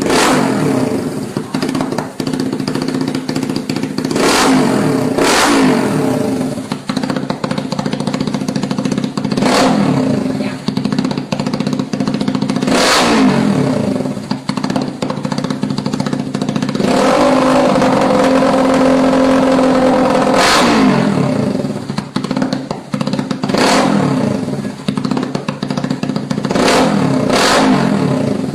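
Supercharged Yamaha Y15ZR motorcycle's single-cylinder four-stroke engine being revved in repeated quick blips that fall back to a steady idle, with one held high rev in the middle lasting about three and a half seconds. Sharp cracks from the exhaust come on the blips, about nine in all.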